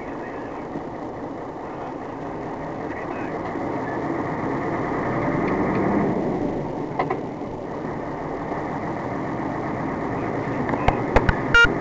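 Steady engine and road noise heard from inside a moving vehicle. It grows louder around the middle as the vehicle overtakes a military truck towing a trailer. A few sharp clicks and a short beep come near the end.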